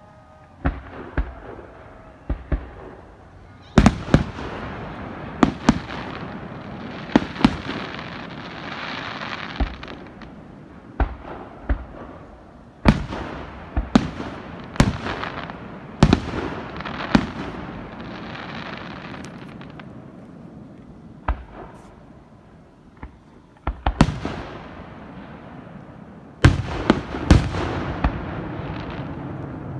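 Aerial fireworks shells bursting in a display: a long run of sharp bangs, some singly and some in quick clusters, with a rushing noisy wash lingering between bursts. The densest volleys come a few seconds in, around the middle, and near the end.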